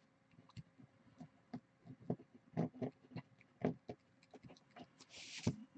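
Faint, irregular taps and clicks of small objects handled on a desk, with a brief scratchy rustle about five seconds in.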